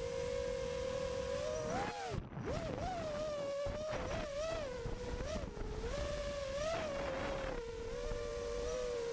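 FPV quadcopter's brushless motors whining, the pitch rising and falling again and again with the throttle.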